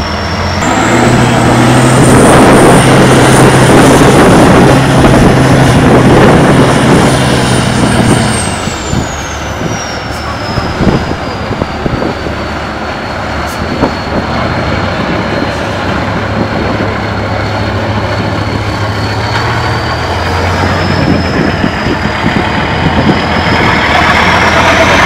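Tatra 815 trial truck's diesel engine working hard under load as it churns through deep mud, with a high whine that rises and falls along with it. The engine is at full effort for the first eight seconds or so, then eases off to a lower, lighter note, and builds up hard again near the end.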